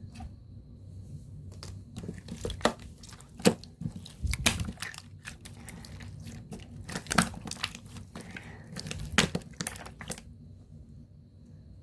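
Slime being squished and handled, giving irregular sharp crackling clicks, busiest in the middle and thinning out near the end.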